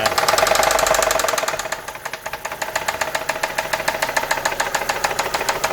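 Opel/Vauxhall Zafira engine running with a fast, regular knock from inside the engine, louder for about the first second and a half and then settling. The owner takes the knock for a worn big end bearing, with the lifters as the other suspect.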